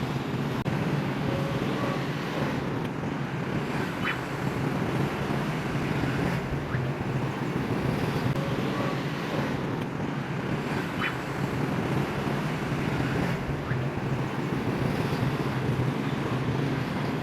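Steady city traffic noise: an even low rumble of road noise with no single vehicle standing out, and a brief faint high chirp about four seconds in and again about eleven seconds in.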